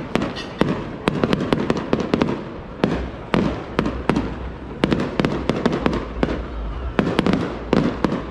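Fireworks display: shells bursting in quick, irregular bangs, sometimes several within a second, each followed by an echoing rumble.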